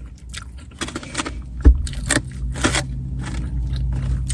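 Eating fried chicken and fries: a run of short crackly bites, crunches and rustles. A steady low hum comes in under them partway through.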